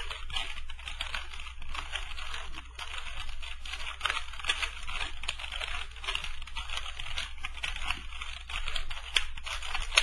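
3x3 Rubik's Cube being turned quickly by hand: a continuous run of plastic clicks and clacks as the layers snap round, repeating the R U R′ U′ move sequence six times over.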